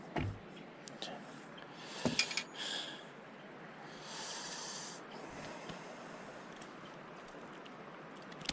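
Handling sounds of landing a small trout on a line, with two sharp knocks near the start and rustling, and breathing close to the microphone.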